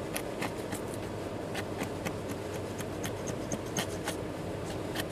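Chisel edge pushed across the grain of a wooden board, tearing out the fibers with a run of small, irregular crackles and ticks. The crackle is the wood tearing rather than being cut cleanly, as a chisel-shaped rip-tooth point does across the grain.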